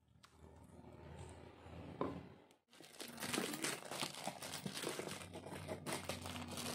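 Faint scraping of a pestle grinding chili paste in a stone mortar, then, after a short gap, scissors cutting open a parcel, its wrapping crinkling and rustling with many small crackles.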